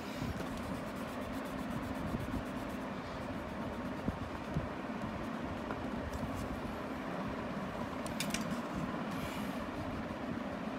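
Steady low rumbling background noise with a faint hum, and faint rubbing and scratching on paper as pencil shading is blended with the fingers.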